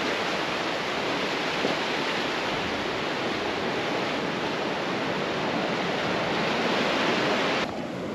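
Ocean surf: small waves breaking and washing up a sandy beach among rocks, a steady rush that breaks off suddenly near the end.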